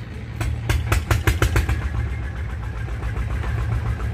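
An engine idling with a steady low throb, with a quick run of sharp clicks from about half a second to two seconds in.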